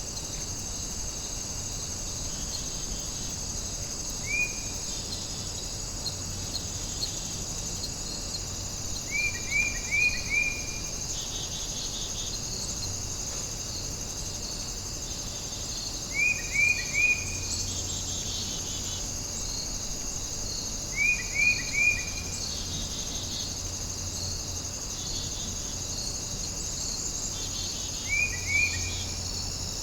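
A steady, high-pitched insect chorus of crickets. Over it, a short call of three or four quick chirps repeats about every five to seven seconds.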